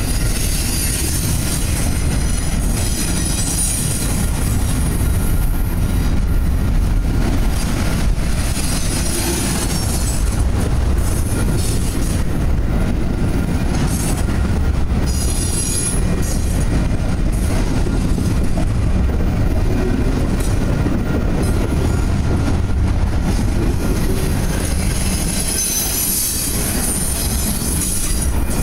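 Intermodal freight train's double-stack well cars and trailer cars rolling slowly past: a steady heavy rumble of steel wheels on rail, with clicks over the rail joints and high-pitched wheel squeal coming and going, strongest near the start and near the end.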